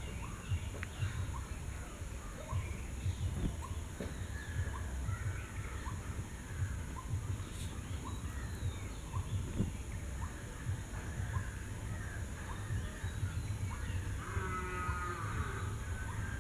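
Outdoor ambience: a low, fluttering rumble with scattered faint bird chirps, and a longer, harsher bird call about fourteen seconds in.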